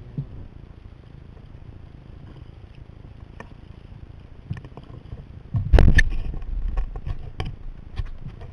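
Sea kayak being paddled: water splashing and lapping against the hull over a steady low rush of wind and water, with scattered small splashes or knocks and one louder splash about six seconds in.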